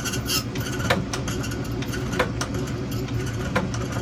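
Key-duplicating machine's motor running with a steady low hum, with a handful of short sharp clicks over it.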